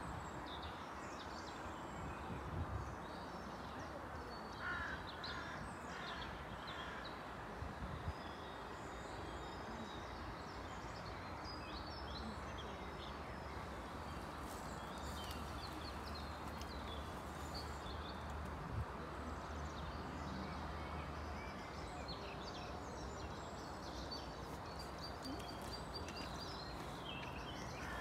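Songbirds chirping and a crow cawing a few times in the first seconds, over steady outdoor background noise with a faint low hum.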